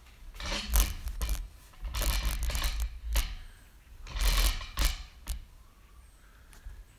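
Rubbing and clicking handling noise in three bursts with a few sharp clicks, from the camera being moved and repositioned on its mount.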